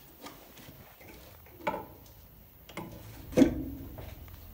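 Old wooden cabinet being handled: a few sharp wooden knocks and clicks, the loudest about three and a half seconds in.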